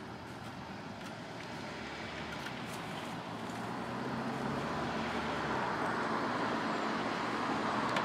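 Road traffic noise: a passing vehicle that grows steadily louder as it approaches.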